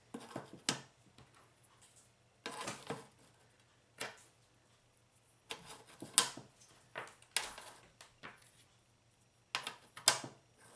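Ceramic thermoelectric (Peltier) modules being set down and shuffled into place on a metal loaf tin: scattered sharp clicks and taps, some in quick pairs, every second or two.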